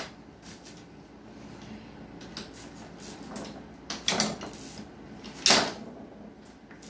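Tabletop foosball game in play: plastic figures striking the ball and metal rods clacking in the table, with a few sharp knocks, the loudest about five and a half seconds in.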